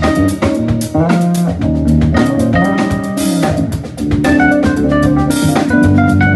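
A live band of electric bass guitar, drum kit and electric keyboard playing together: steady drum strokes and a bass line under held and moving keyboard notes.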